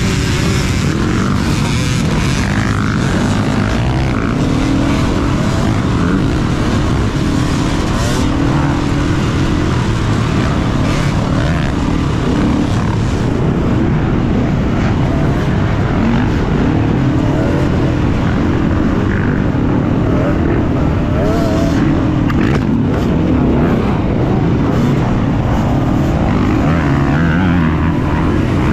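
KTM EXC-F 350's single-cylinder four-stroke engine running hard, its revs rising and falling continually as the enduro bike is ridden over the course.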